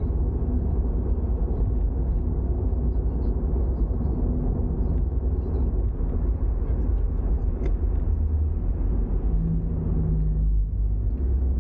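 Toyota GR86 on the move: a steady low rumble of its 2.4-litre flat-four engine and road noise, with a brief steady hum rising out of it about nine seconds in.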